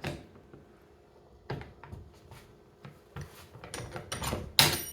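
Scattered clicks and knocks of a golf iron being fitted and clamped into a loft-and-lie machine, metal parts clinking, coming thicker and louder near the end.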